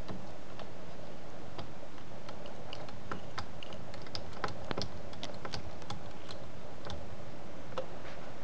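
Small, irregular metal clicks and ticks of a precision screwdriver driving tiny screws into a laptop's screen hinge. The clicks are busiest in the middle and sit over a steady hiss.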